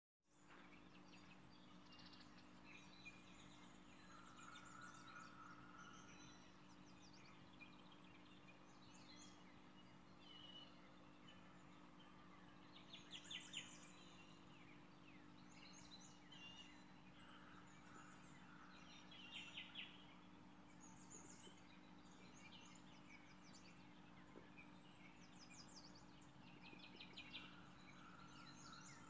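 Near silence: a faint steady hum, with faint bird chirps and quick trills scattered throughout.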